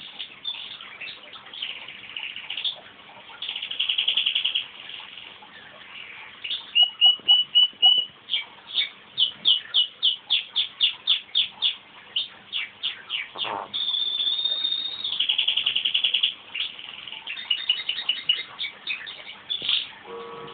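Crossbred canary singing a long, varied song: rolling trills, runs of quick sweeping notes and a held high note about two-thirds of the way through.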